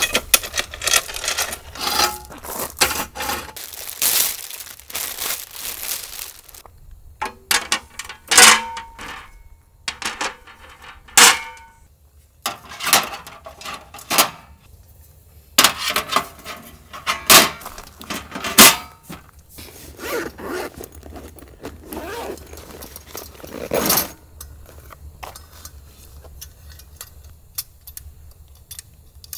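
Metal camping table being assembled by hand: panels and frame parts clack, scrape and clink, some strikes ringing briefly like sheet metal. The handling is busiest for the first few seconds, then comes as single sharp knocks every second or two, and turns into softer rustling and fiddling near the end.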